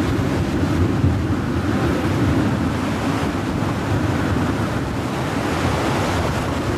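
Strong wind buffeting the microphone over the wash of a rough, breaking sea: a steady, dense noise heaviest in the low end.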